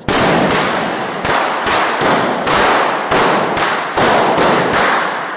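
A ragged volley of revolvers fired into the air with blanks, about a dozen sharp shots overlapping over five seconds, each ringing on in the reverberant hall.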